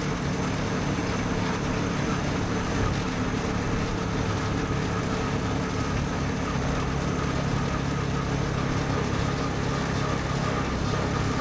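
Engine of a moving road vehicle running steadily: a constant low drone with road noise over it.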